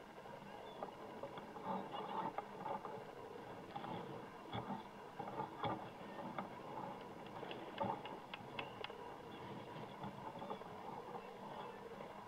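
Faint open-air ambience at a soccer field: a low steady background noise with a few sharp knocks, most of them in the middle of the stretch, such as balls being kicked.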